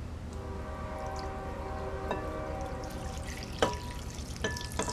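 The liquid soap and water mixture is poured from a glass measuring cup onto a folded cloth in a glass bowl, with a few light glass clinks in the last second or so. Under the first three seconds runs a faint steady hum of several tones, which stops at a clink.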